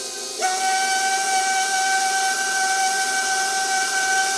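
KitchenAid stand mixer beating choux pastry dough. About half a second in, its motor steps up to a higher speed, then runs with a steady whine.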